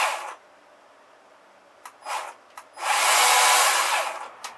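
Worx cordless electric chainsaw run in short trigger bursts, motor whirring and chain spinning on a dry, unoiled bar as a test that the chain rotates. It winds down just after the start, blips briefly about two seconds in, then runs for about a second and a half. A click comes just before it starts again at the end.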